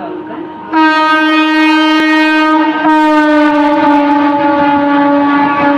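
Horn of a modern ICF EMU local train blowing as the train approaches and passes: a long steady blast starting about a second in, briefly broken and resumed about three seconds in, with the train's running noise beneath.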